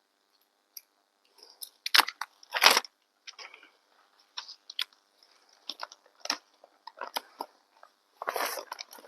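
R13 insulation being handled and fitted: irregular crinkling, rustling and light clicks and knocks, loudest about two seconds in and again near the end.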